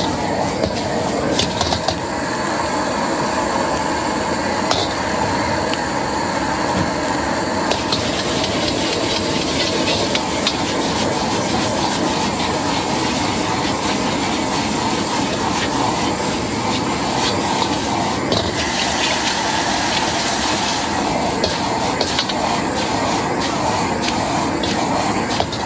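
Gas wok burner running at full flame under a carbon-steel wok, with noodles and vegetables sizzling and steaming as they are stir-fried. A metal spatula scrapes and clinks against the wok now and then.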